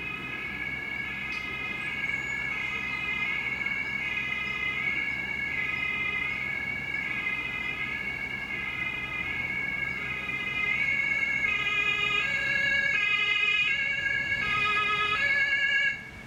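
German two-tone emergency siren (Martinshorn) on a THW Renault van, alternating steadily between a high and a low tone and growing louder as the van approaches. It stops abruptly near the end.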